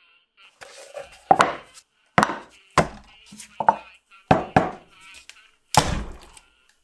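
Axe blade chopping into a raw chicken breast and striking the wooden cutting board beneath: a series of about nine sharp chops, some in quick pairs.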